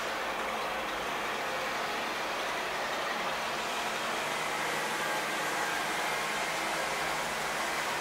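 Steady background noise with no distinct bird calls, an even hiss-like wash that does not change.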